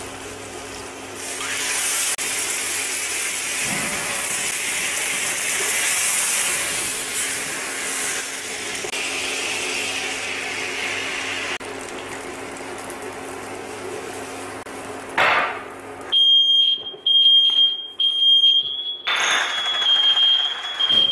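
Butter-and-sugar caramel sizzling in a frying pan, with orange juice poured in partway through. Near the end a smoke alarm goes off with a shrill piercing tone, first in short pulses and then held, set off by smoke from the cooking.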